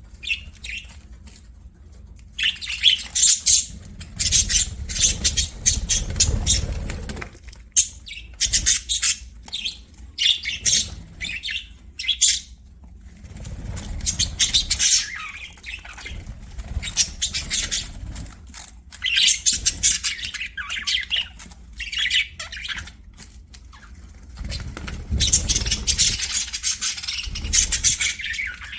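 Budgerigars chirping and warbling in bouts of rapid high chatter a few seconds long, with short pauses between.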